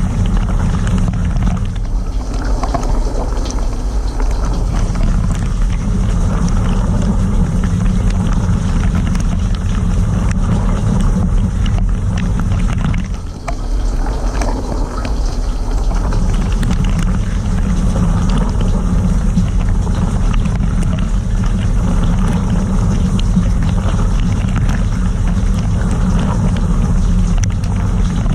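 Cylinda dishwasher in its rinse cycle, heard from inside the tub: water spraying and splashing over a steady low pump hum. The spray drops out briefly about halfway through, then picks up again.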